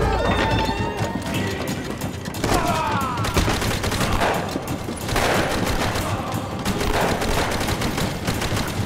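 Gunfight: rapid, overlapping pistol and rifle shots, firing almost without pause.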